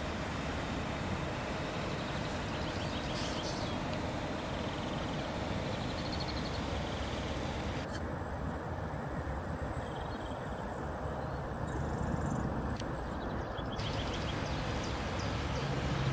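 Low, steady rumble of an inland cargo ship's diesel engine passing on the river, slowly growing louder as the ship draws nearer.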